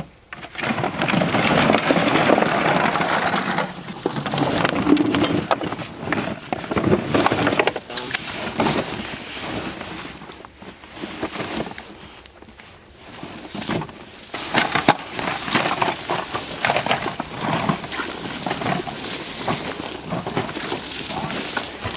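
Irregular crunching, rustling and knocking of people moving through timber and handling hunting gear. It is loudest in the first few seconds and again from about 14 seconds in.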